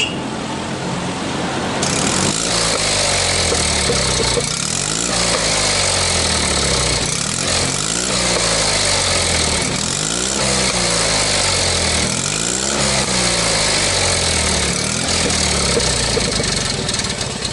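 Fiat 500R's air-cooled two-cylinder engine revved repeatedly through its new exhaust silencer, the pitch climbing and dropping back about every two and a half seconds.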